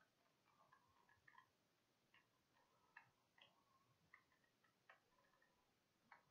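Near silence broken by faint, irregular clicks, about two a second, from a computer mouse and keyboard being worked.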